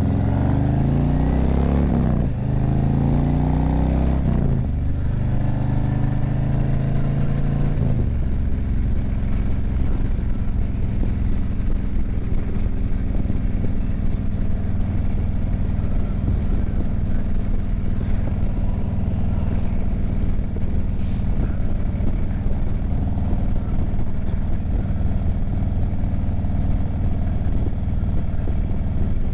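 Harley-Davidson Street Glide's V-twin engine pulling away and accelerating through the gears: the pitch rises three times, dropping at each shift, about two, four and a half and eight seconds in. It then runs at a steady cruising speed.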